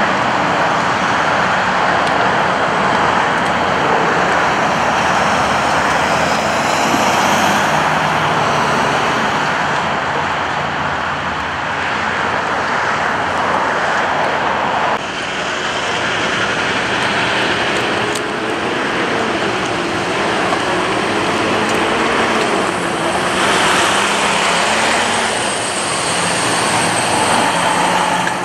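Steady freeway traffic noise, with cars passing at speed.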